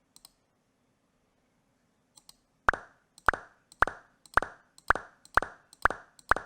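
Popcat meme 'pop' sound effect from a custom mouse cursor, played on each mouse click. A few faint mouse clicks come first, then from a little under halfway in the pop sounds about twice a second, eight times.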